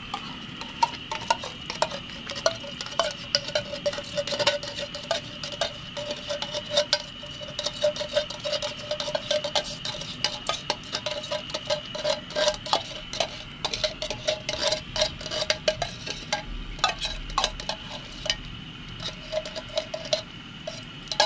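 A metal spoon clinks and scrapes against a tin can and a cooking pot, many quick clicks, as thick condensed milk is spooned out of the can into a pot of glutinous-rice porridge and stirred. A steady high whine runs underneath.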